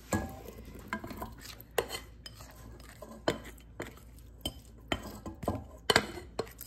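Irregular clinks and knocks of a kitchen utensil against a bowl as candied fruit is added to the stand mixer's bowl of panettone dough.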